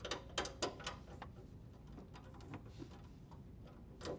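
A few light clicks and knocks from parts being handled during a dishwasher repair. Several come in quick succession in the first second, and another comes just before the end.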